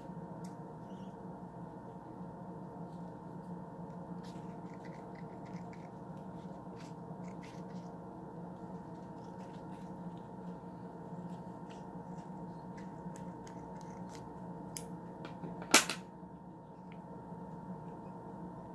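Hands handling and peeling open leathery ball python eggshells: faint scattered clicks and rustles over a steady hum, with one sharp click about 16 seconds in.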